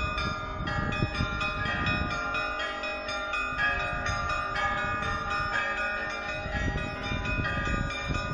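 Orthodox church bells of a cathedral bell tower ringing a continuous peal: many bells of different pitches struck again and again in quick succession, their tones overlapping and ringing on.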